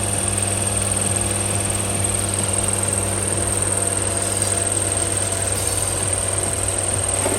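Alfa Romeo 164 engine idling steadily while it warms up just after starting.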